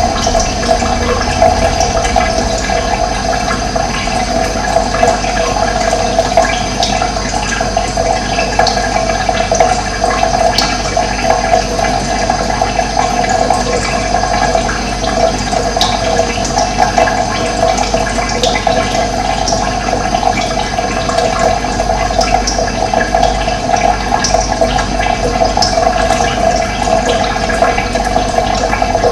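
Running water rushing steadily, with occasional short bird chirps high above it.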